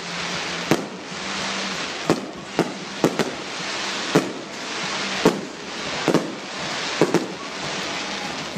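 Aerial fireworks bursting in a quick, irregular series of sharp bangs, roughly one or two a second, over a steady hiss.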